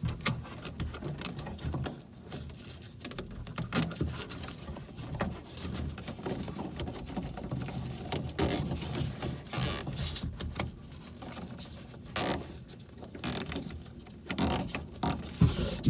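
Irregular plastic clicks and rustling as a wire is routed along a door's wiring harness and a zip tie is fastened loosely around it, its teeth ratcheting in short bursts.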